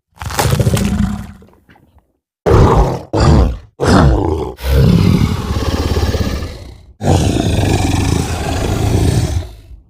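Designed creature vocalizations for an afanc, a fictional crocodile-beaver beast: a series of rough, low roars and growls. One call of under two seconds, a brief pause, three short grunting roars in quick succession, then two long drawn-out roars of about two and a half seconds each.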